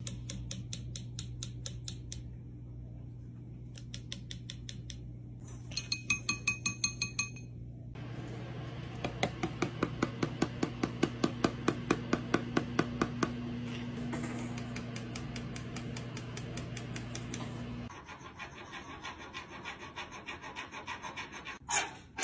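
Green-cheeked conure tapping its beak in quick runs of several taps a second, on a glass and then on a tissue box, over a steady low hum.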